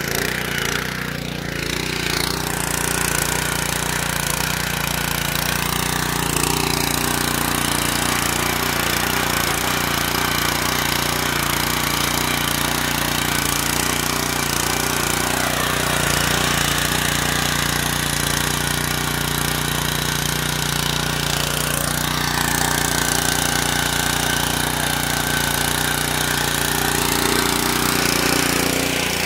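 Honda FJ500 power tiller's GX160 single-cylinder four-stroke engine running steadily under load while its rotary tines churn through soil and the ridger cuts a furrow.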